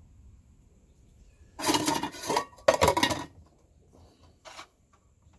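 Gas hissing out of a canister camping stove's burner as its valve is opened: two loud bursts of about a second each, a couple of seconds in, then a shorter fainter one near the end.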